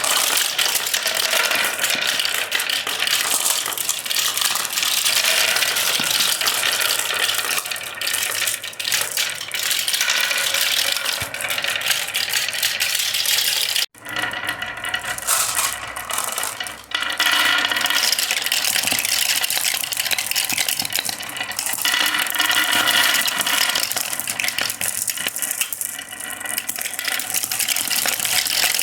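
Many marbles rolling and clattering down the wooden slopes of a HABA marble run: a dense, continuous rattle of small clicks. It breaks off for an instant about halfway through, then carries on.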